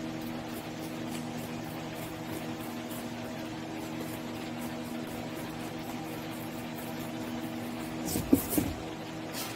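Large drum fans running with a steady hum, under faint, quick scraping of a razor blade on foam board, with a brief knock about eight seconds in.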